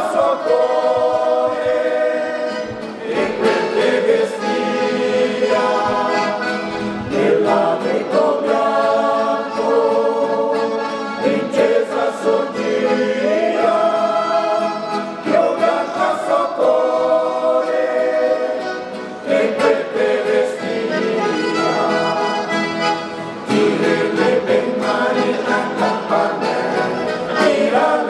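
Mixed choir of women's and men's voices singing together in Venetian-Italian dialect, in sustained phrases that swell and pause briefly every few seconds.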